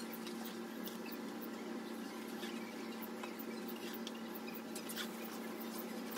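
Knife slicing through an eggplant on a cutting board: light, irregular clicks and taps, over a steady low hum.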